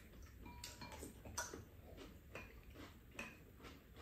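Quiet eating sounds: scattered soft clicks of spoons and chopsticks against ceramic bowls, with mouth noises of chewing, a few clinks briefly ringing.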